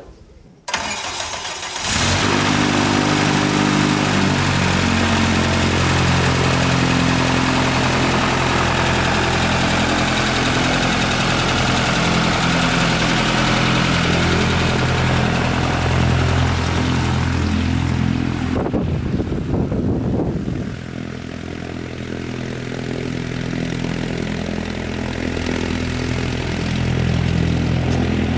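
Bantam B22UL microlight's pusher engine starting about a second or two in, then running steadily. After about twenty seconds it drops somewhat in level and then slowly builds again.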